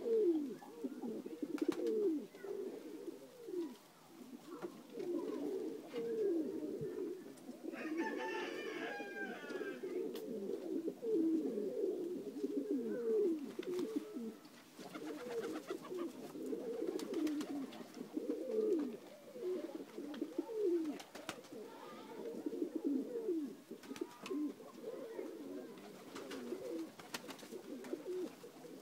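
A flock of Macedonian dunek pigeons cooing, with many low coos overlapping continuously. A brief, higher-pitched call comes about eight seconds in.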